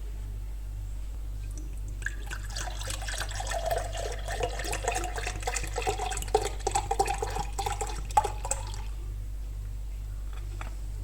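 Water pouring into a container for about seven seconds, splashing, its pitch rising slightly as the vessel fills, then stopping.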